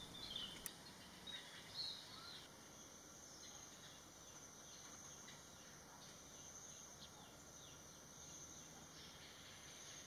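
Faint steady, high-pitched insect drone, with a few soft bird chirps in the first couple of seconds.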